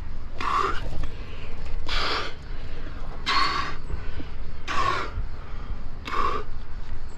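Rock climber's hard, rhythmic breathing close to the microphone: a forceful breath about every one and a half seconds, five in all, as he pulls through the moves.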